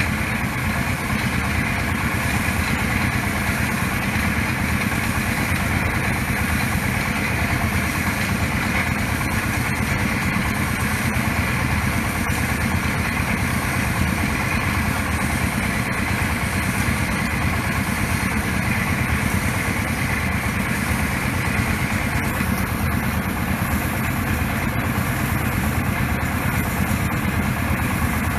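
Engine of a small water-well drilling rig running steadily while the rig drills, with a continuous hiss over it.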